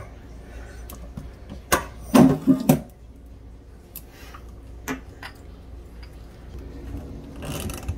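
Light clicks and knocks of a kitchen faucet being handled and lowered toward a stainless steel sink, loudest in a short clatter about two seconds in, with a brief rustle near the end.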